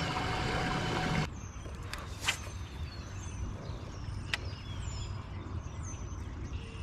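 A steady whirring noise with many even tones that cuts off suddenly about a second in. After it, small birds chirp over and over in short, high calls, with a couple of sharp clicks.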